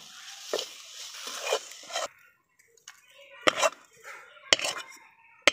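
Metal spatula scraping the hot coconut and date-jaggery filling around an aluminium karai. It cuts off, then three sharp knocks about a second apart as the spatula is tapped against the steel bowl the filling goes into.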